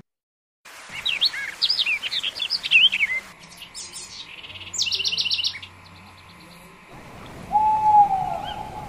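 Birds chirping: a run of short rising-and-falling chirps, then a quick burst of rapid high notes, then a long hooting call near the end.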